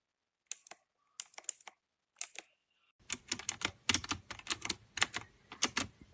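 Typing on an HJK917 mechanical keyboard with clicky blue switches: a few separate keystrokes, then fast continuous typing from about halfway through.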